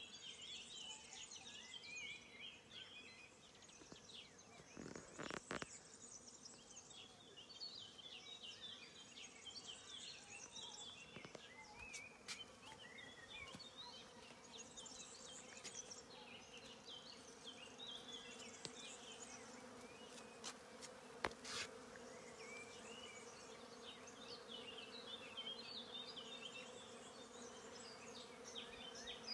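A flying insect buzzing steadily, louder in the second half, over scattered faint high chirps. Two brief knocks, about five seconds in and again about twenty-one seconds in.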